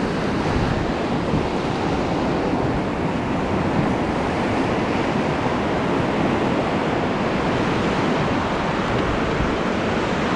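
Rushing whitewater of the Salmon River running high at about 47,000 cfs around a raft, a steady loud roar, with wind rumbling on the microphone.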